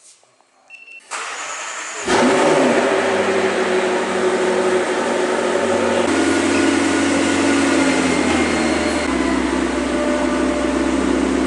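A supercar's engine being started: the starter cranks for about a second, the engine catches with a loud flare at about two seconds, then settles into a steady fast idle that drops a step lower near nine seconds.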